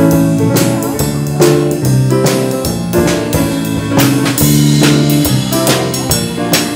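A live band playing: a drum kit keeps a steady beat over bass and keyboard notes that move in a repeating pattern.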